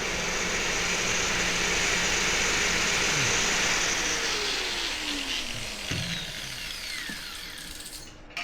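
Power tool cutting the steel shell of a water heater, running steadily for about four seconds, then winding down with a falling whine as it is let off.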